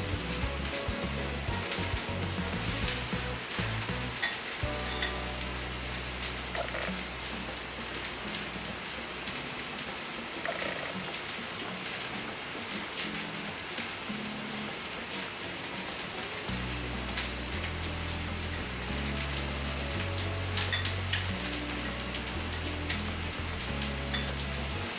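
Egg-battered fish fillets frying in oil on a flat griddle: a steady sizzle with many small crackles and pops. Background music with a bass line plays underneath, clearer in the second half.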